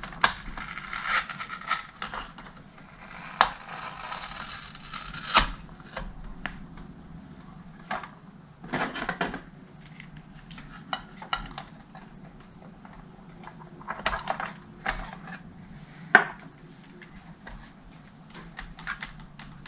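The plastic and metal parts of a Dell Latitude CPi laptop are handled during disassembly, with scattered sharp clicks and taps and a few short stretches of rubbing and scraping.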